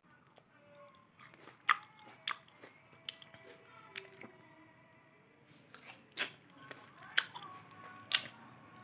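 A person biting into and chewing fresh grapes, with about seven sharp, crisp bites spread among quieter wet chewing.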